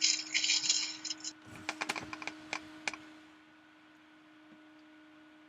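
Kitchen handling sounds while cooking burgers: a short crackling hiss that stops suddenly, then a scatter of sharp clicks and knocks, leaving only a faint steady hum.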